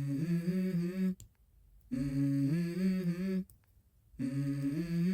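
Wordless hummed vocal melody from the background song, a low voice in three short phrases, each stepping up in pitch, with brief pauses between.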